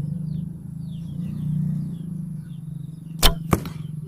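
A shot from a traditional bow: the string snaps sharply on release, and about a quarter second later the wooden arrow strikes the target with a second, softer thud.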